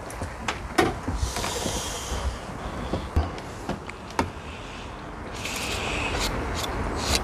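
Scattered small clicks and knocks with two short hissing rustles, one about a second in and one about five seconds in, over a steady low rumble.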